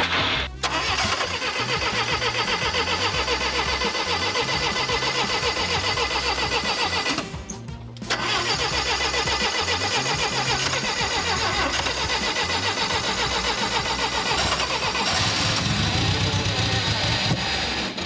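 Starter cranking a Bobcat skid steer's carbureted gasoline engine, a steady rhythmic churn that stops briefly about seven seconds in and then resumes; near the end the engine starts to catch. This is a no-start that the mechanic suspects is an ignition timing problem.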